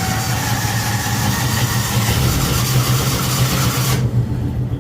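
Gator utility vehicle's engine idling steadily just after starting. A hiss laid over the engine cuts off about four seconds in, leaving the engine running on.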